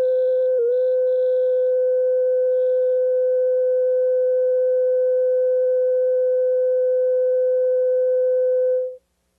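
Steady test tone played with colour bars on a VHS tape, a single held pitch that sags briefly about half a second in, then holds steady until it cuts off abruptly near the end.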